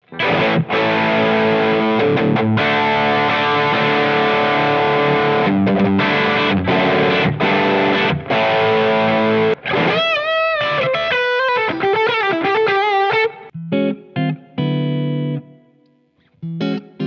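Umeda UST QM24 electric guitar played through heavy distortion. About nine seconds of fast riffing broken by short stops lead into a single-note lead line with string bends and vibrato. Then come a few ringing chords that fade out, with one more stab at the very end.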